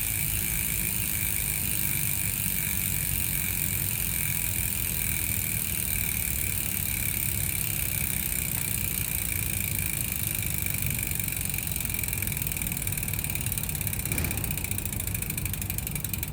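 Aeroic AM-8.5 bicycle rear hub, 6 pawls and 72 engagement points, freewheeling: the pawls click so fast they blend into a steady buzz, which breaks into separate rapid clicks near the end.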